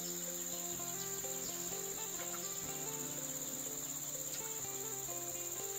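Steady high-pitched chirring of forest insects, with a quiet melody of held low notes that change about once a second underneath.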